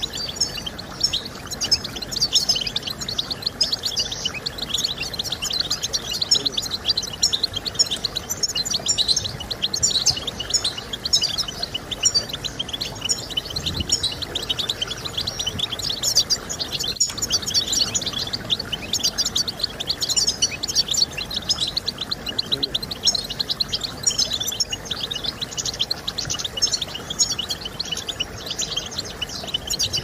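European goldfinch song: a fast, continuous, high-pitched twittering of chirps and trills.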